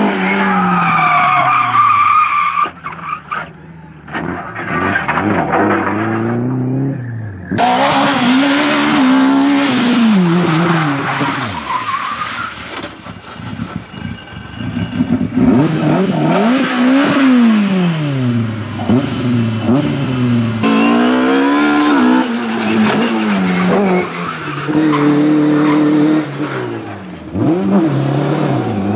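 Rally car engines revving hard, several cars in turn, including a Lada saloon, a Suzuki Swift and a BMW 3 Series. The pitch climbs and drops repeatedly through gear changes and lift-offs, with tyres skidding on the loose surface. The sound changes abruptly several times as one car gives way to the next.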